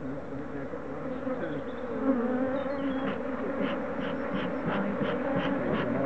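Many honeybees buzzing around an opened hive, a steady, slightly wavering hum. From about halfway a faint, even ticking, roughly three a second, runs alongside it.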